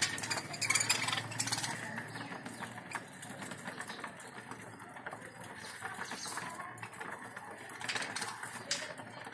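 A flock of budgerigars chattering and chirping while they feed, with busier bursts of chirps about a second in and again near the end.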